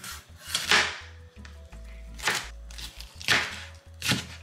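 Large chef's knife chopping red bell pepper on a plastic cutting board: sharp chops about a second apart, each blade stroke hitting the board.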